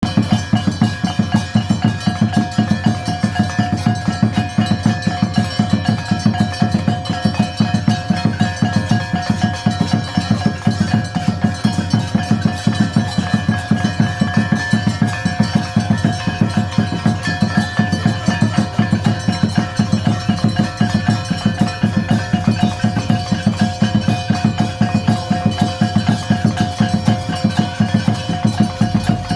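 Puja percussion: a drum beaten in a fast, steady rhythm, with a bell ringing continuously over it.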